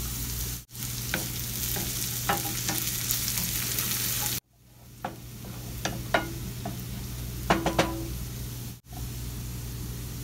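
Food sizzling in oil in a pan while being stirred, the sizzle strong for about the first four seconds and then much lower. In the second half a spoon clinks and scrapes against the pan a few times, with one short ringing clink. A steady low hum runs underneath.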